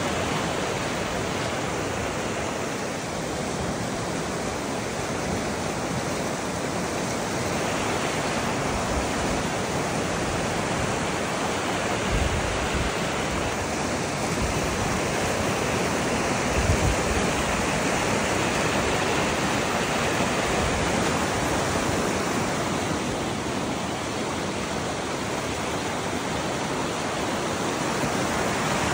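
A small backyard stream in flood, swollen by heavy rain into a deep, fast river, rushing past as a steady, unbroken roar of churning water.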